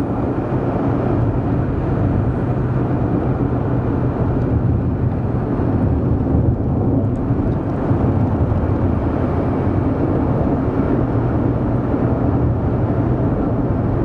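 Steady road and engine noise inside a moving car's cabin: an even rumble with a low hum.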